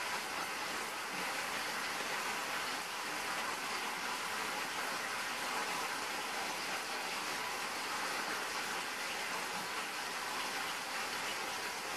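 Meat sizzling in a frying pan: a steady, even hiss.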